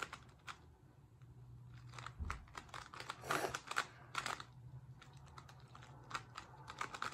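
GAN 13 M Maglev magnetic speed cube turned quickly by hand, its layers clicking in irregular runs of turns, busiest about three to four seconds in.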